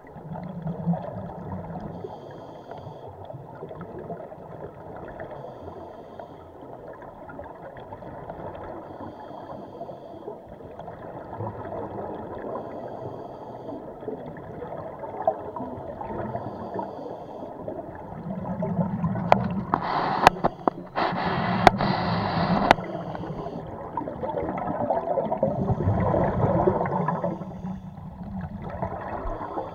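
Scuba diver's breathing heard underwater: regulator exhaust bubbles gurgling, with louder bubble bursts and a few sharp clicks about two-thirds of the way through and again near the end.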